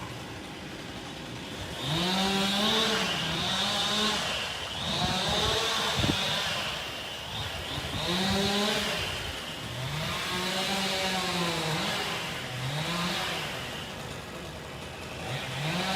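Chainsaw engine revving up and dropping back again and again, its pitch rising and falling every two to three seconds as it cuts. There is a brief knock about six seconds in.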